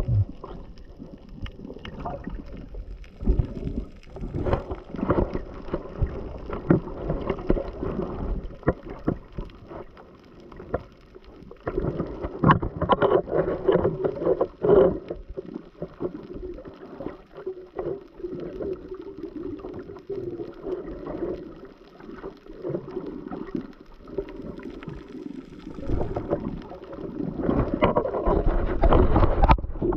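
Water sloshing and bubbling picked up by a camera underwater, with many irregular knocks and clicks; it gets louder about halfway through and again near the end.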